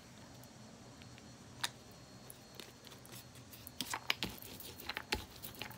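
Faint scattered clicks and taps of small paint and ink bottles and a foam roller being handled on a cutting mat: a single tap about a second and a half in, then a cluster of clicks near the end.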